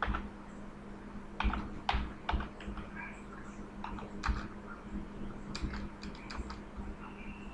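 Typing on a computer keyboard: irregular key taps and clicks, with a steady low hum underneath.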